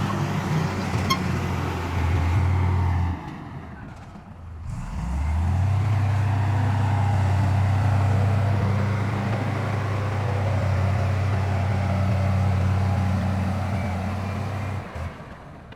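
Heavy diesel engine of earthmoving machinery running with a deep, steady drone. It drops away about three seconds in, then a deep engine drone comes back and holds steady until it falls off just before the end.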